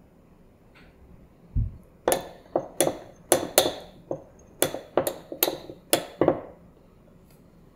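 A metal spoon clinking against a small glass bowl, about a dozen sharp taps over some four seconds, while it stirs starch into water to make a thickening slurry. A soft thump comes just before the clinking starts.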